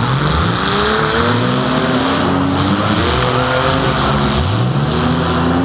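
Compact demolition derby car's engine revving hard, heard from inside the car: the pitch repeatedly climbs and drops back, several times over, as the car drives and reverses through the mud.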